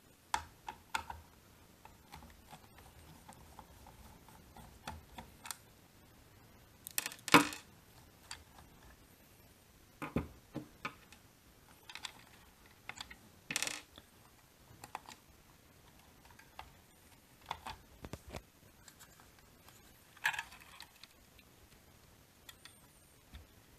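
Scattered clicks, taps and knocks of hand work on a rice cooker's plastic housing: a screwdriver loosening screws and the plastic inner-pot base being worked loose and lifted off. The loudest knock comes about seven seconds in.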